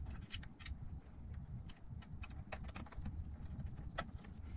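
Faint, scattered small clicks and taps: a ratcheting screwdriver and a wire end being worked into a screw terminal on a switching power supply.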